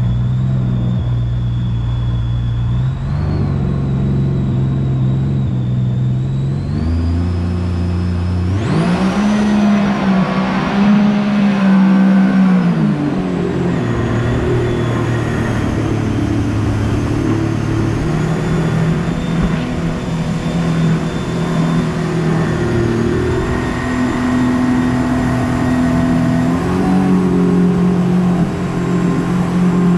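Jet boat engine running under way, its pitch stepping up and down as the throttle changes; about eight seconds in it revs up with a rush of noise and settles back a few seconds later.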